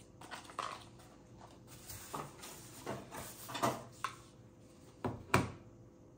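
Handling noises as a wireless mouse and its cable are taken from their packaging: scattered rustles and small plastic clicks and knocks, the sharpest knock about five seconds in.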